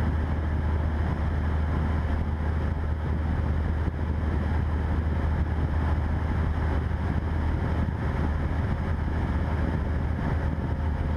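Cessna 172's piston engine and propeller droning steadily in flight, heard through the cockpit headset intercom.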